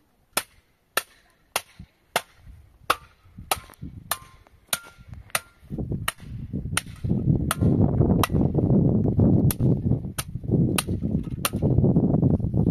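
A steady series of sharp strikes, about one every 0.6 seconds, some with a brief ringing tone. From about six seconds in, a loud rushing noise joins them.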